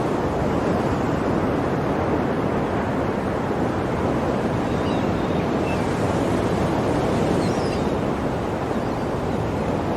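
Ocean waves washing on a shore in a steady, continuous rush, with a few faint high chirps about halfway through.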